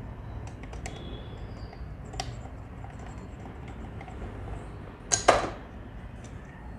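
Light clicks and taps of a screwdriver and small metal parts being fitted into an old sewing machine head, with one louder, short double clatter about five seconds in.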